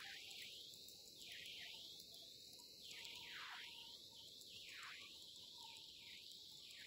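Near silence: a faint steady hiss that warbles as if through noise reduction.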